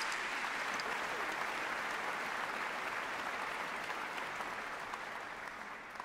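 Large audience applauding, an even clapping that slowly tapers off toward the end.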